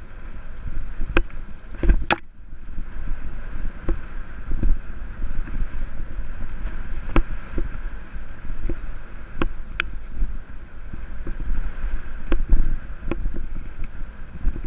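Jamis Dakar XCT Pro full-suspension mountain bike riding fast over dirt singletrack. A steady rumble of wind on the microphone and tyres on the dirt runs throughout, broken by sharp clacks of the bike rattling over bumps, loudest about two seconds in and again near the end.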